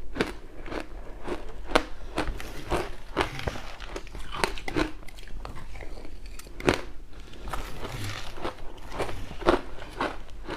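Close-up crunching of crushed ice with passion fruit being bitten and chewed: a run of sharp, irregular crunches, several a second.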